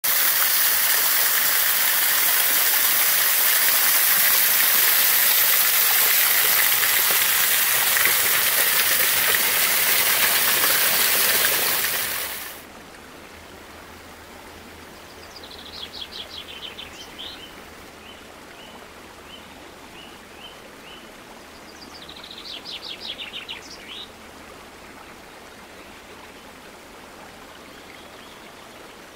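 Waterfall rushing loudly, the sound cutting off abruptly a little before halfway. After it, quiet woodland where a songbird sings twice, each song a fast trill followed by a string of short, lower notes.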